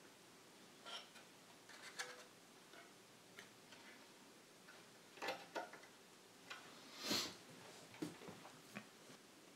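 Faint, irregular clicks and taps of hands handling wires, clips and circuit boards inside the plastic electronics housing of a Quad ESL 63 electrostatic loudspeaker, with a louder short hiss-like rustle about seven seconds in.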